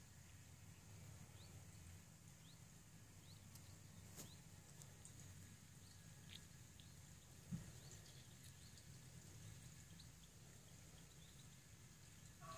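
Near silence: quiet outdoor garden ambience with faint, scattered short high chirps, one soft thump about seven and a half seconds in, and a click about four seconds in.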